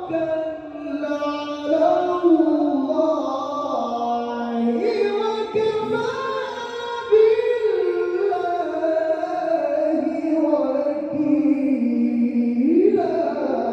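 A male Qur'an reciter's voice in melodic tilawah, drawing out a long ornamented phrase in a high register, the pitch stepping up and down with rapid turns on the held notes.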